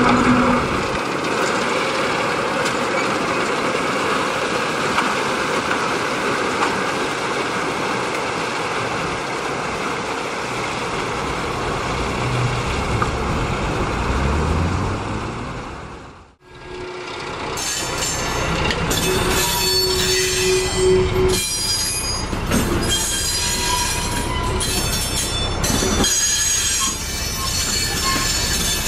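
Train of empty wagons hauled by a British Rail Class 03 diesel shunter: a steady running noise for the first half. After the sound briefly cuts out about halfway, the wheels squeal in several high tones, with short metallic knocks.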